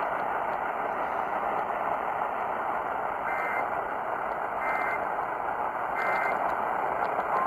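Radio receiver hiss, with three short, evenly spaced bursts of Emergency Alert System two-tone data signal about a second and a half apart. Bursts this short are typical of the end-of-message code that closes a broadcast alert.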